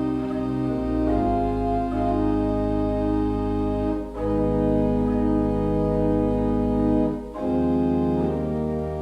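Organ playing slow, sustained chords over a held bass, briefly breaking between chords about four seconds in and again near seven seconds.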